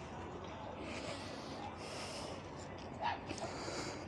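A person breathing in and out close to the microphone, soft hissy breaths roughly once a second, over low outdoor background noise with a brief distant voice about three seconds in.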